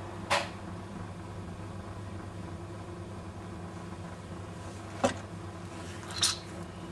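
Electric potter's wheel running with a steady low motor hum while a clay goblet is thrown on it. Three brief sharp clicks cut through: one just after the start, one about five seconds in and one just after six seconds.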